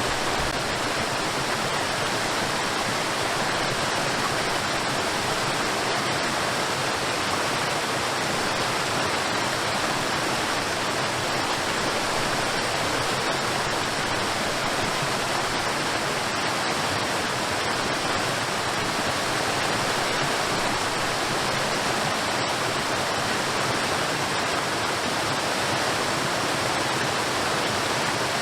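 Cordless stick vacuum cleaner running steadily: an even, unchanging rush of suction airflow.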